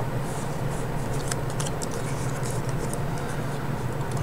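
Faint rustling and light ticks of paper pieces being handled and pressed down on a tabletop, over a steady low hum.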